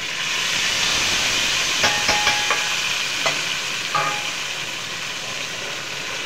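Hot ghee with fried onions sizzling as the tadka (baghar) is poured from a ladle onto thin moong dal khichdi. The sizzle is loudest at first and slowly eases, with a few light metal clicks about two seconds in and again near four seconds.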